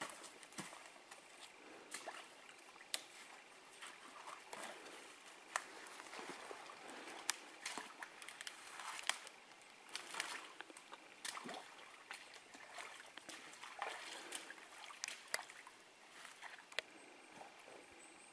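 A hiker's boots moving through brush and a shallow forest brook: irregular snaps and crackles of twigs and dead branches underfoot, with water sloshing and trickling around the steps.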